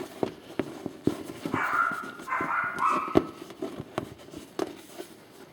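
Scattered clicks and knocks of a dust cover being handled and fitted over a tape echo unit. A wavering, squeaky high tone runs for about a second and a half in the middle.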